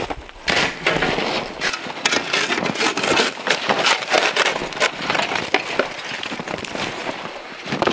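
Crusted, frozen snow crunching and scraping in quick, irregular crunches, from boots treading it and a shovel and hands digging it out of a metal fire ring.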